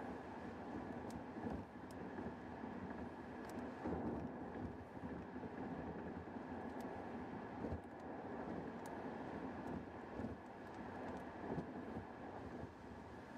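Steady tyre and road noise heard inside a Tesla's cabin while it cruises on a rain-wet road, with a few faint, irregular ticks. No engine is heard, since the car is electric.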